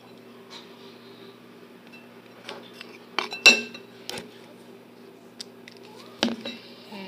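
A utensil stirring runny slime mixture in a bowl, with scattered clinks and knocks against the bowl, the loudest about halfway through.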